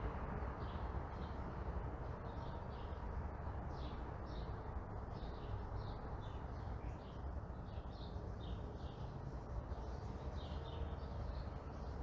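Small birds chirping in many short, quick repeated notes over a steady low rumble of distant traffic.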